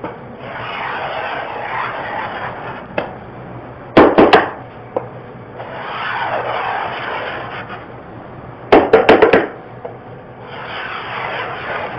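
A hand tool rubbed along a wooden door panel in long strokes, scraping and sanding off old paint. Twice, about four and nine seconds in, a quick run of sharp knocks cuts in, louder than the rubbing.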